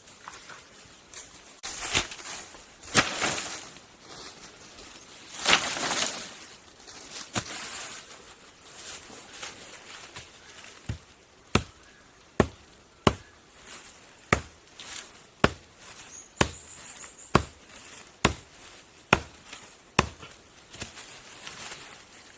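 Wood being chopped by hand: a few rustling, scraping stretches, then a steady run of sharp chopping blows, one or two a second, through the second half.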